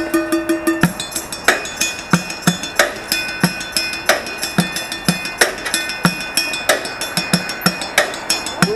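Street drummer playing a makeshift kit of plastic buckets, cooking pots and metal bowls with drumsticks: a fast, steady rhythm with deep beats about twice a second and lighter hits between them, the metal ringing on.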